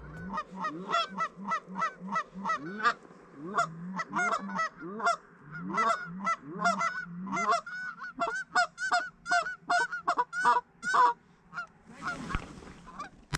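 Rapid series of Canada goose honks, about two a second, that stop about eleven seconds in.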